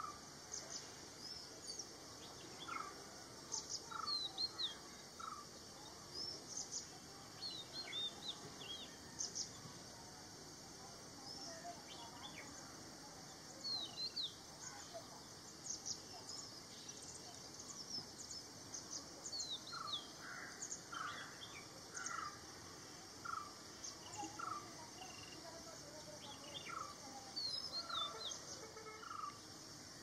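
Birds calling: scattered short, high chirps and whistles, with runs of a lower note repeated about once or twice a second, over a steady high hiss.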